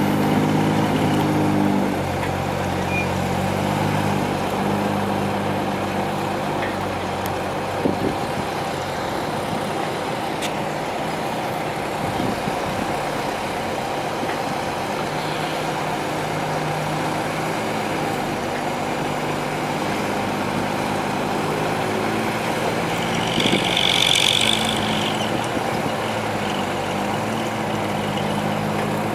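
Heavy diesel engines of a Kobelco excavator and a six-wheel dump truck running, their pitch rising and falling as the loaded truck pulls away. A short hiss comes about four-fifths of the way through.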